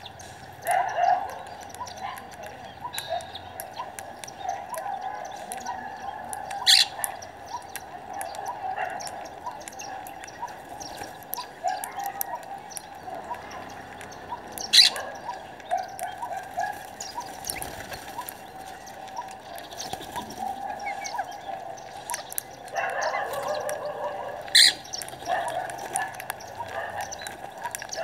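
Flock of rose-ringed parakeets chattering and chirping without a break, busier for a couple of seconds near the end, with three brief, sharp louder sounds spaced several seconds apart.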